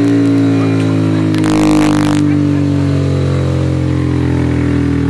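Kawasaki Z125 Pro's single-cylinder 125cc engine, fitted with a Kitaco super stock kit, running loud and steady on a dyno, its pitch sagging slightly; it is on the stock fuel tune, which runs too lean. A brief hiss comes about a second and a half in.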